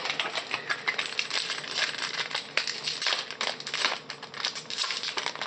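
Topps Chrome basketball trading cards being flicked through by hand: a quick, uneven run of light clicks and rustles as the stiff cards slide and tap against each other.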